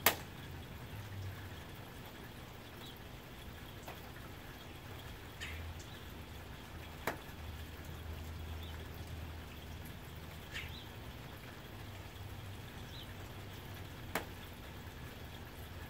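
Soft, steady rain on a tin roof, with a sharp louder drop at the very start, another about halfway through and one near the end. Faint bird chirps come now and then in the background.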